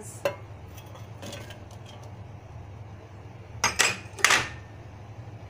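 Sliced onion dropped into a stainless steel mixer-grinder jar, knocking on the metal: a few light clicks, then two louder clatters about four seconds in, over a low steady hum.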